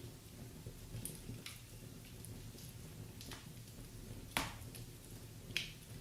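Wood fire in a fireplace crackling: a low steady rumble of flames with a few scattered sharp pops, the loudest about four seconds in and another near the end.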